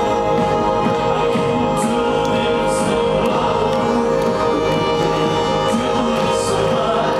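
Live band music at a concert: a steady held chord with voices singing over it, recorded from within the audience.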